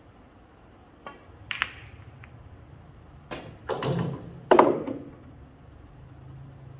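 Pool cue striking the cue ball, with sharp clicks of balls hitting each other about a second and a half in. Then three louder knocks and thuds between about three and five seconds in, the last the loudest.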